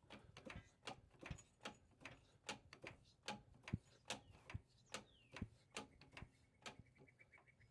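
Car jack being pumped to lift a car, giving a faint, even series of clicks, about two to three a second.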